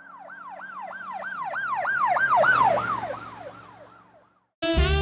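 Emergency vehicle yelp siren, rising and falling rapidly about three times a second over a low engine rumble. It grows louder, peaks about halfway through, then fades away as the vehicle passes by. Music cuts in abruptly near the end.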